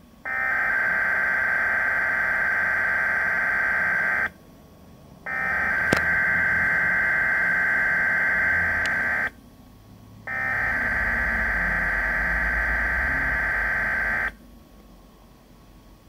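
Weather radio speaker sounding three SAME digital header bursts, each a steady data buzz about four seconds long with a second's gap between them. This is the coded alert header that opens a Winter Storm Warning broadcast.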